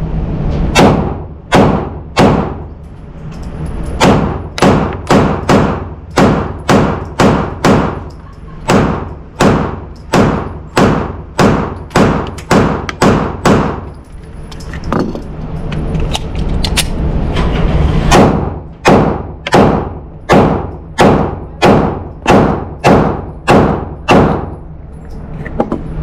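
Pistol shots fired in quick succession, about two to three a second, as a magazine is emptied; the shots stop for a few seconds midway during a reload, then another fast string follows.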